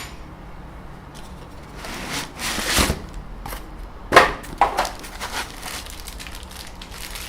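Packaging rustling and crinkling as parts are pulled from a box, with a few sharp knocks of parts being handled and set down, most of them about four to five seconds in.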